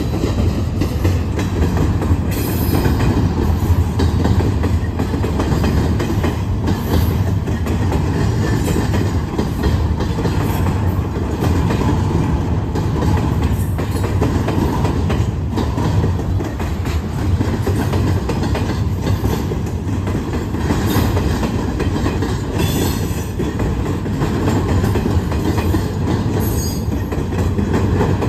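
Freight train of double-stack container cars rolling past: a steady rumble of steel wheels on rail with clickety-clack over the rail joints, and now and then brief high wheel squeals.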